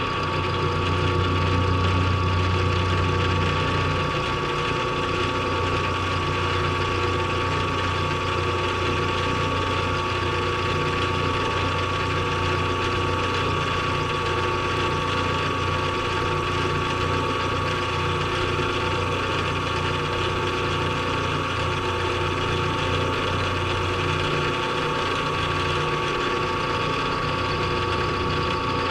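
A metalworking machine tool running steadily under power, with a constant high whine and a low motor hum; the hum drops back about 24 seconds in.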